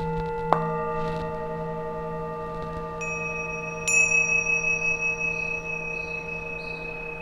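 Singing bowls struck one after another and left to ring, their long tones overlapping: a lower bowl about half a second in, then two higher, brighter ones about three and four seconds in, the last the loudest.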